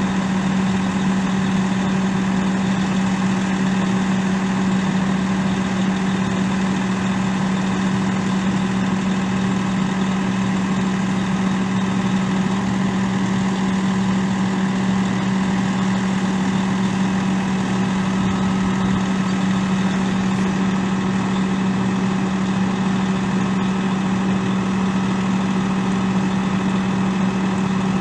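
Detroit Diesel Series 60 inline-six turbo diesel of a fire truck running steadily at idle: an even, unchanging hum with one strong low tone.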